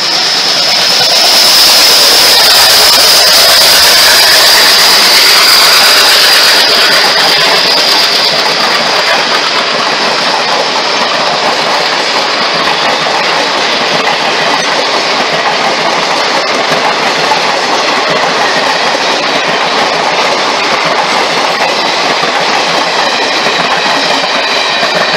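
Indian Railways express train's coaches running past close by, a loud, steady rush of wheels on rail. A high, steady squeal is heard over it at the start and fades away over the first several seconds.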